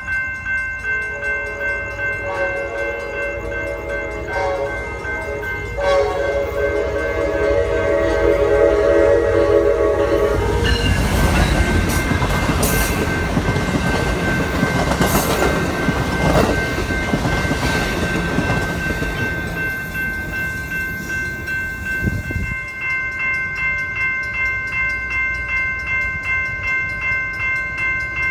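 Amtrak Pacific Surfliner passenger train approaching and sounding its horn for about nine seconds, then passing close by with a loud rush of rolling wheels and rail clatter that fades after about twenty seconds. A steady high ringing with a regular pulse continues underneath.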